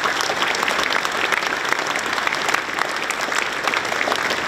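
Crowd applauding, many hands clapping in a dense, steady stream.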